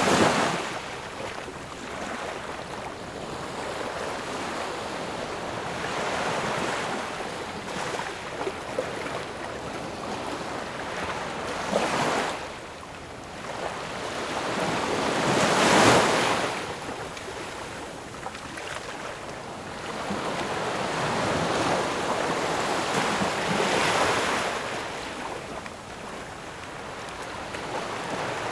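Ocean surf: waves swelling and breaking one after another every few seconds, each rush of water fading before the next.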